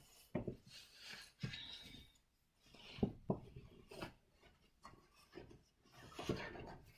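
Clothing fabric rustling and rubbing as a pajama set is unfolded and handled, with a few short soft knocks mixed in.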